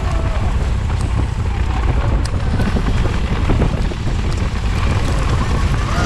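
Strong windstorm wind buffeting the microphone, a loud, dense low rumble.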